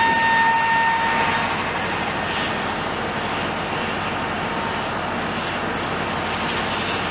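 Construction machinery running steadily, with a high whine that fades out about a second and a half in.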